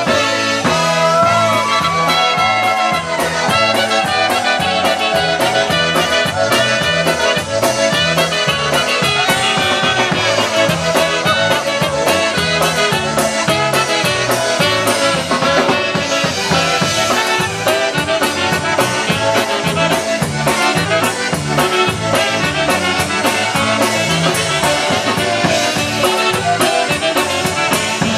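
Live polka band playing an instrumental passage: trumpet and saxophone over accordion, electric bass and drum kit, with a steady, even beat.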